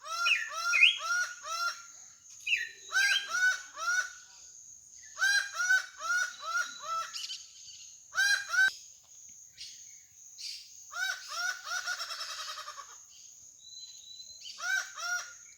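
Laughing falcon (acauã) calling: bouts of repeated arched notes, about three or four a second, broken by short pauses.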